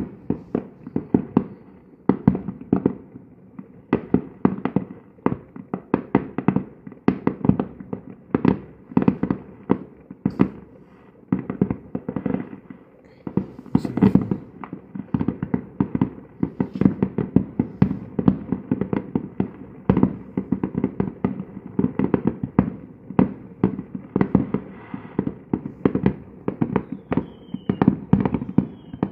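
Aerial fireworks bursting in a continuous barrage: sharp bangs and crackles come several a second without a break.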